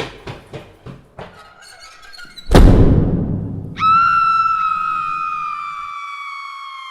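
Horror sound effects: a run of sharp knocks, about three a second, that fade away. Then a loud deep boom hit rings out. About a second later a long, high, pure tone starts and slowly sinks in pitch.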